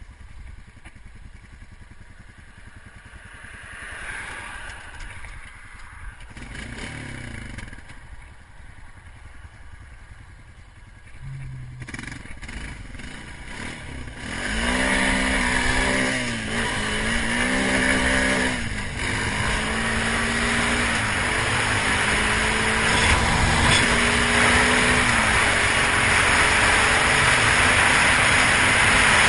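ATV engine idling low while a car swells past on the road. About halfway in, the quad pulls away: its engine revs up and down twice, then pulls steadily with pitch climbing. Wind and road noise grow as it gathers speed.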